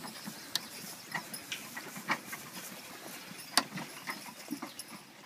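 Team of draft horses pulling a loaded wooden hayrack: a steady low rumble with irregular sharp clinks and knocks from the harness and wagon, the sharpest about three and a half seconds in.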